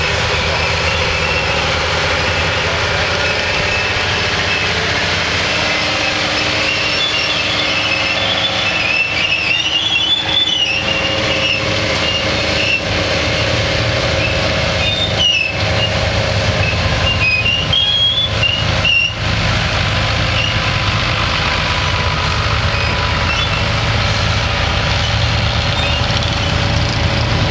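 Ford TW10 tractor's turbocharged six-cylinder diesel engine running hard under steady heavy load as it drags a weight-transfer pulling sled.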